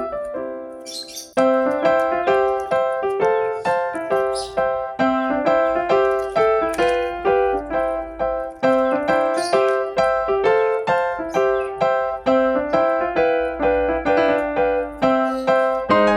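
Background piano music, a steady run of plucky keyboard notes, with faint high chirps now and then.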